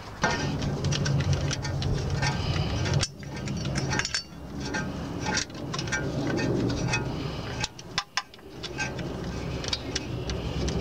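Ratchet wrench on a long socket extension clicking in quick, uneven runs as the oil pan bolts are run down snug, before final torquing. A low steady hum is under the clicks for about the first three seconds.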